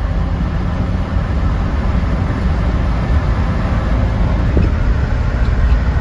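Turbocharged pickup truck engine pulling hard at nearly full throttle, revs climbing from about 2,000 to 2,700 rpm as boost builds, with road noise, heard from inside the cab.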